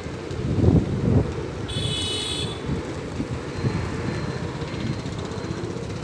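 Low rumbling outdoor noise, with two louder surges about a second in and a brief high, whistle-like tone a little after.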